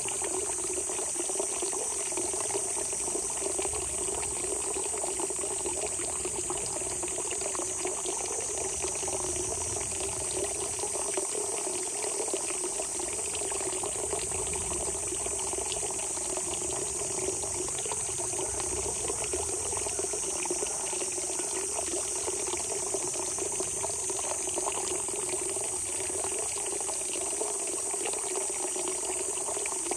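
Spring water welling out of the ground and running in a steady gurgling trickle, with a constant high-pitched insect chorus over it.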